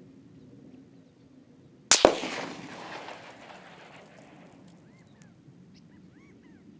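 A single AR-15 rifle shot about two seconds in, with a sharp echo a split second after it and a rolling reverberation that fades over about two seconds.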